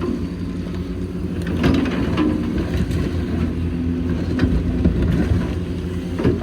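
Hitachi Zaxis 490LCH excavator's diesel engine running steadily under working load, with several sharp knocks and clanks from the machine at work, the loudest about a second and a half in and near the end.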